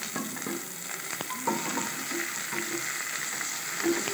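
Hot oil sizzling in a kadai as onions, green chillies, fresh curry leaves and coriander leaves fry, stirred with a spatula that scrapes and knocks lightly on the pan a few times.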